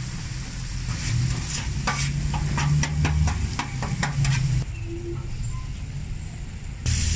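Metal spatula scraping and clicking against a steel griddle tray as chopped pork steak is turned over, with the meat sizzling. A steady low hum runs underneath. The scraping is busiest in the first few seconds and thins out after about four and a half seconds.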